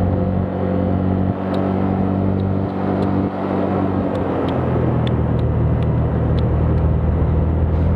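Motorcycle engine running while riding, with short dips in level twice early on and a change in the engine note about halfway through; faint light ticks over it.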